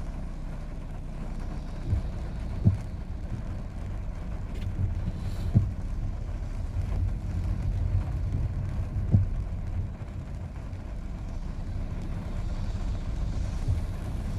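A car driving at road speed, heard from inside the cabin: a steady low rumble from the road and engine, with about five short, sharp thumps along the way.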